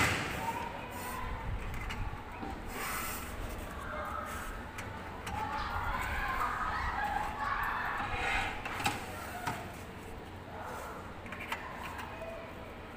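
Aluminium window frame with glass knocked down onto a metal worktable with a sharp clack, then rubbing and shuffling as the frame is slid across the table, with a couple of light taps later on.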